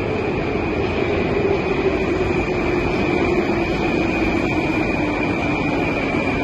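Moscow metro train pulling into the station, its running noise filling the platform, with a steady high whine and a lower hum that slowly falls in pitch as the train slows.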